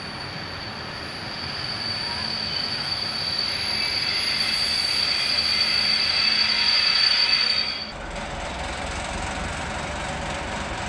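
High-pitched squealing from an arriving passenger train's wheels and brakes, growing louder and then stopping abruptly about eight seconds in. After it, the ČD class 751 diesel locomotive's engine runs with a steady low rumble.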